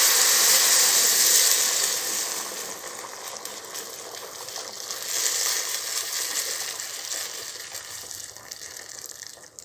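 Boiling water from a kettle poured into a hot pan of butter-browned chicken, sizzling and hissing loudly, then fading. The hiss flares up again about five seconds in and dies away near the end.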